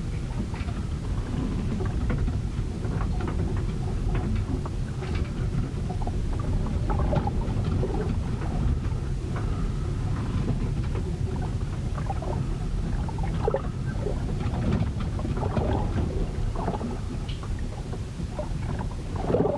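A storm heard aboard a ship: a steady low rumble of wind and sea, with scattered short knocks throughout and a sharper knock near the end.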